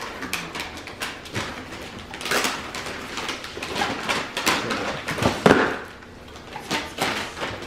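Wrapping paper and tissue paper rustling and crinkling in short, irregular bursts as presents are handled and unwrapped, with a sharp knock about five and a half seconds in.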